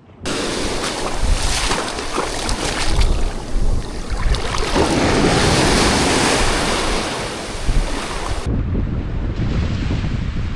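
Ocean surf washing onto a sandy beach, with strong wind buffeting the microphone; the wash swells up in the middle and eases again.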